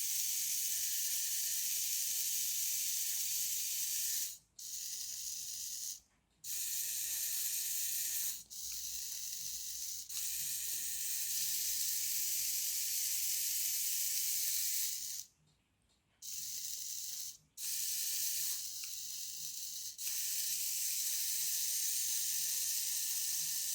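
Small DC motors and plastic gearboxes of a toy line-following car whirring fast on the extra voltage of a LiPo battery. The whir cuts off and restarts several times and alternates between louder and quieter stretches as the drive wheels are switched on and off by covering the sensors.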